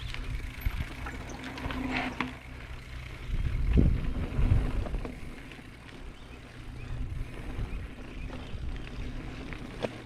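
Mountain bike being ridden over a dirt trail, with wind rumbling on the action camera's microphone and scattered clicks and rattles from the bike over bumps. The rumble swells loudest for a second or two around the middle.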